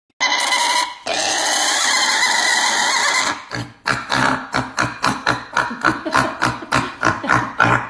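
Piglet squealing harshly for about three seconds, then crunching and chewing noisily on a raw green vegetable, about three bites a second.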